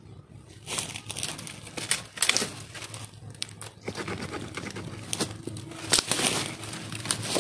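Rustling leaves and cracking of thin, dry saplings as sticks are cut from a thicket, a run of irregular sharp snaps and crackles starting about a second in.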